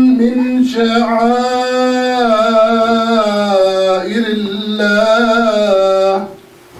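A man's voice chanting Quran recitation in the melodic, drawn-out style, holding long notes that waver and slide between pitches. The phrase ends about six seconds in.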